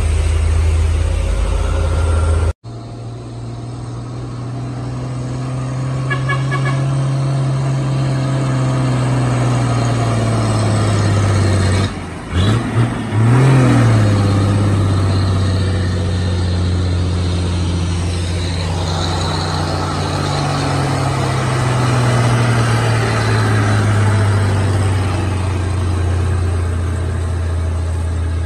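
Diesel engines of loaded sugarcane trucks pulling hard past at close range under heavy load, their low note slowly rising and falling in pitch. The sound cuts off abruptly about two and a half seconds in, with a brief break about twelve seconds in.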